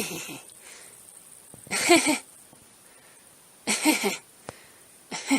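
A woman laughing in short, breathy bursts, three of them about two seconds apart.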